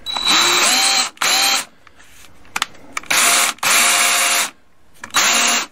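DeWalt 18-volt cordless right-angle drill run in five short trigger pulls. Each time the motor whines up to speed and then stops. The drill is working.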